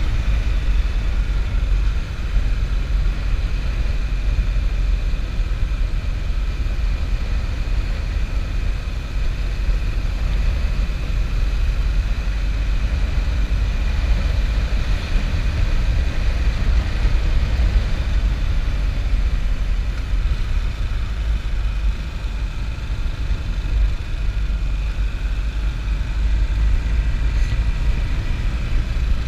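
Motorcycle cruising at a steady speed, its engine running under a heavy, steady rumble of wind on the microphone.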